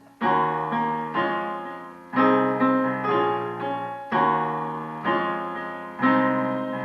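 Piano playing gospel slash chords in D-flat: the run G-flat over E-flat, D-flat over F, A-flat over C, D-flat over B-flat. A new full chord is struck about every two seconds, with lighter re-strikes in between, each one ringing and fading.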